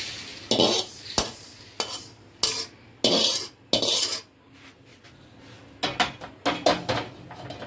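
Perforated steel skimmer scraping dry-roasted vermicelli out of a metal kadhai onto a steel plate: an irregular run of scrapes, with metal clinks and knocks of the skimmer against the pan and plate.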